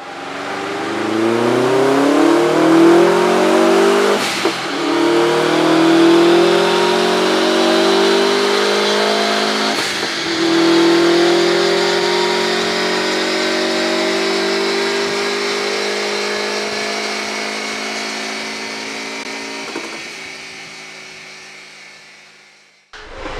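Tuned Subaru WRX 2.5 turbo flat-four, with a hybrid turbo and an 80 mm exhaust with a sport catalytic converter, accelerating hard under load. Its pitch climbs steadily, with short breaks about four, ten and twenty seconds in.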